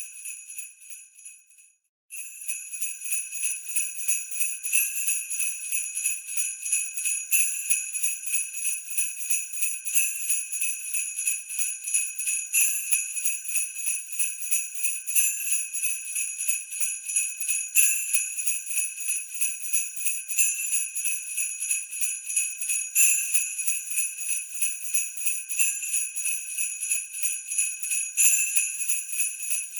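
Sleigh bells shaken in a continuous jingle, swelling with a stronger shake about every two and a half seconds. The jingle dies away and stops for a moment about two seconds in, then starts again.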